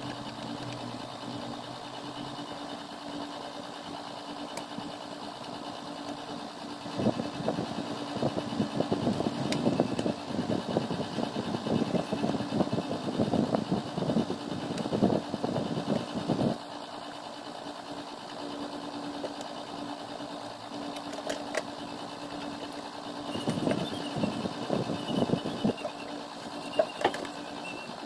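Xbox 360 Slim running after a disc-drive replacement: a steady machine hum with one low tone, with stretches of rougher, irregular whirring from the disc drive spinning about a quarter of the way in and again near the end.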